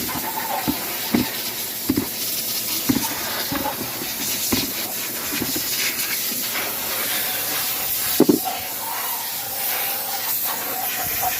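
Steady hiss under a string of light, irregular knocks and clinks from excavator swing motor parts being handled while they are washed in gasoline. The loudest knock comes a little past eight seconds in.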